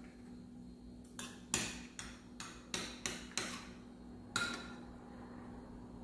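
A metal spoon clinking and tapping against the glass plate of beaten egg and the dishes while nuggets are coated: about eight light clicks in quick succession, a louder one near the end.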